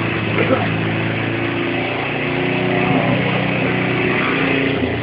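Pull-start petrol lawnmower engine running steadily at a constant speed.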